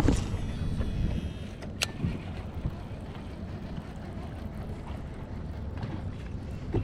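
Wind rumbling on the microphone aboard a small fishing boat on open water, with a sharp click at the start and another about two seconds in.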